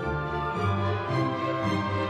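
Background orchestral music with strings.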